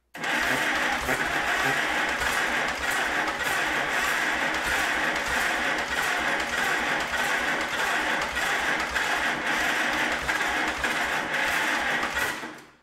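Electric starter cranking the 1942 Silver King tractor's engine steadily and rhythmically for about twelve seconds without the engine catching, on its first start attempt after the rebuild; the cranking stops suddenly near the end.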